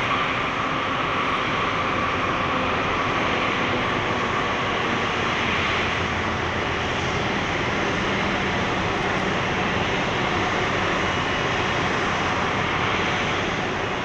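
Boeing 747-8's GEnx jet engines running steadily: a wide, even hiss with a faint whine in it.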